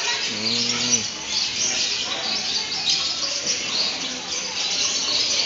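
Many small birds chirping and tweeting together in a continuous dense chatter, with a brief low voice-like call about half a second in.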